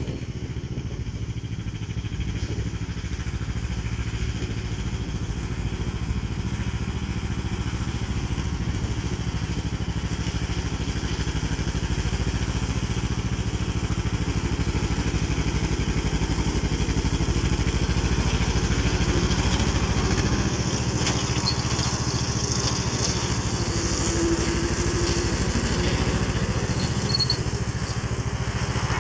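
1953 John Deere 40 tractor's two-cylinder engine running steadily under load while driving a bush hog rotary cutter through tall grass. It grows louder as the tractor approaches, loudest a little past the middle, then eases slightly.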